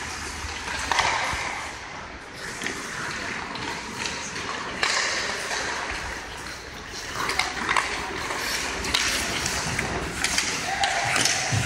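Ice hockey play in an indoor rink: skates scraping across the ice, with scattered sharp clicks and knocks of sticks and puck.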